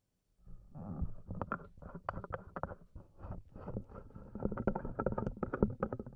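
Handling noise on the stage microphones: a run of irregular knocks, bumps and rustles over a low rumble as the mic stands and papers are moved about.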